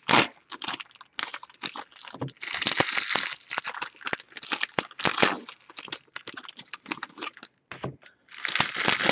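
Allen & Ginter baseball card pack wrappers being torn open and crinkled by hand, in bursts of crackling and tearing with short pauses between them.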